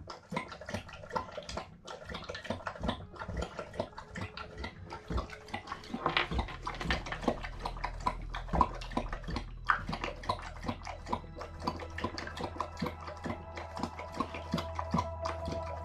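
Dog lapping water from a stainless steel bowl: a steady run of quick, wet laps, getting louder about six seconds in.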